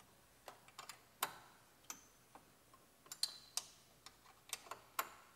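Faint, irregular metallic clicks and taps of a wrench working on a bolt that holds the mechanical cooling fan to the water pump pulley, coming in small clusters.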